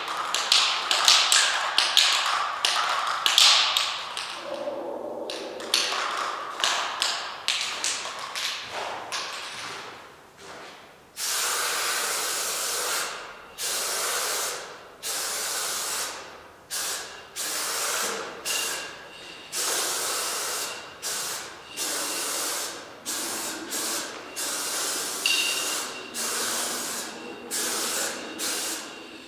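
Aerosol spray-paint can hissing in repeated bursts of one to two seconds with short breaks, as letters are sprayed. In the first few seconds there is a rapid run of loud clicks and rattles.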